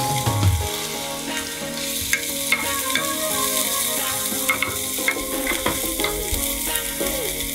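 Diced bell peppers and onion sizzling in hot oil in a nonstick pan, stirred with a wooden spatula that makes short scraping clicks against the pan.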